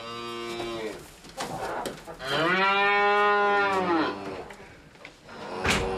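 Cows mooing: a call fading out just after the start, then a loud, long moo from about two seconds in that rises slightly and falls away over about two seconds. A sharp click comes near the end.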